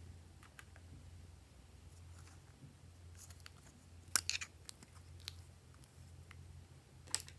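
Plastic lipstick tubes being handled and uncapped: a quick cluster of sharp plastic clicks about four seconds in, a lone click a second later and another couple near the end, over a low steady hum.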